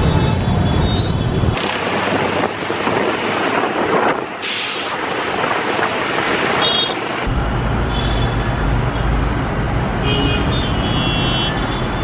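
Heavy city road traffic: motorcycle and bus engines running, with horns honking several times and a short hiss about four and a half seconds in.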